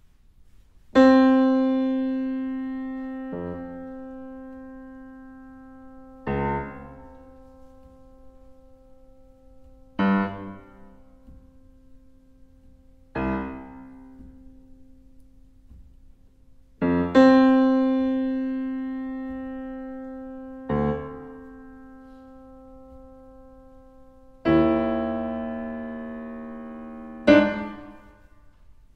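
Yamaha CFX concert grand piano playing a slow, sparse passage: single notes and chords struck about every three to four seconds, each left to ring and die away. Picked up by an Earthworks QTC30 omnidirectional microphone.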